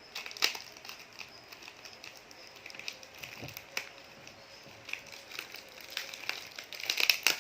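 Plastic toy packaging crinkling and crackling as it is opened, with irregular sharp clicks that come thicker near the end.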